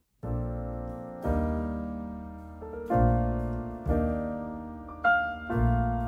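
Interlude piano music: chords struck about once a second, each ringing and fading before the next.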